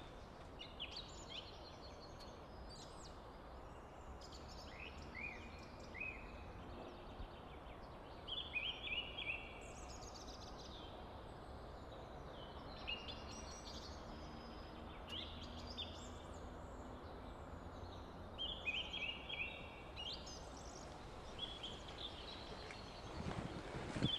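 Several songbirds singing, short high chirping and trilling phrases overlapping one another over a faint steady background hiss. Footsteps start up near the end.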